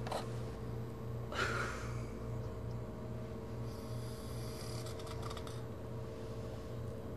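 Steady low hum of the fishing boat's engine, pulsing about twice a second, heard below deck where a man lies asleep, with one brief hissing breath-like noise about a second and a half in.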